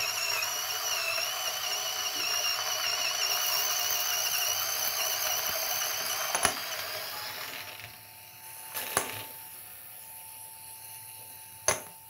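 Option-O Lagom Mini grinder with 48 mm Moonshine burrs grinding a 20 g espresso dose: a steady motor whine over the gritty noise of beans being ground. About seven seconds in, the grinding noise falls away, leaving a fainter steady hum as the burrs run nearly empty, with a few sharp clicks.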